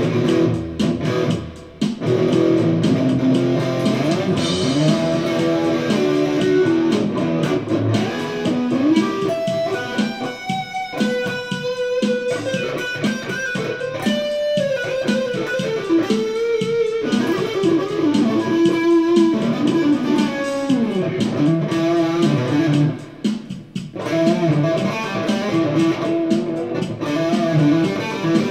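Electric guitar played through an amplifier in a continuous melodic jam, with two short lulls, about a second in and again around 23 seconds in.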